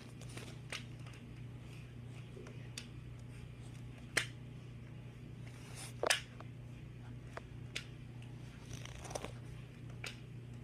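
Scattered sharp clicks and taps, about seven spread over several seconds and loudest around four and six seconds in, over a faint steady low hum: a stapler and pen being handled and set down while a line is drawn along the stapler's edge.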